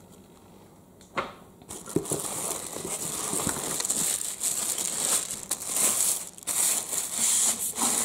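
Plastic packing film crinkling and rustling as it is pulled back and the vacuum's metal extension tube is lifted out of its foam tray. It is quiet for the first second and a half apart from a single click about a second in, then the crinkling runs on to the end.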